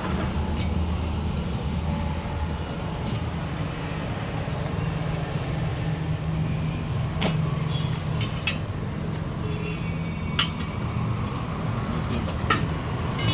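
A steady low mechanical hum, like a running engine or machine, with a few sharp clicks or knocks scattered through the latter half.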